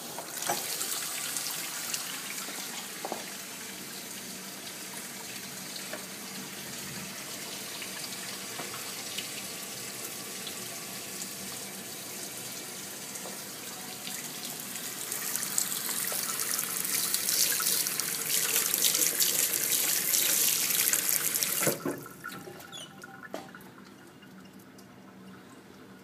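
Kitchen mixer tap turned on and water running steadily into a stainless steel sink. It grows louder for the last several seconds, then stops suddenly about 22 seconds in as the tap is shut.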